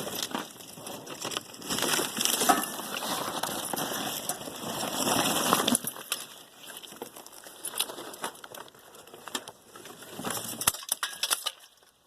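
Rustling, crackling and small clicks of scrap wire and plastic being handled, loudest in the first half, then scattered clicks.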